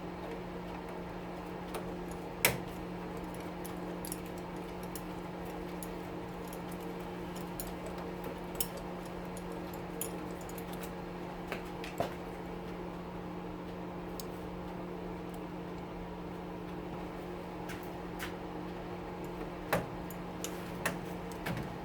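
Hand tools clicking and clinking now and then on the oven's sheet metal as the door hinge is unscrewed, over a steady fan hum.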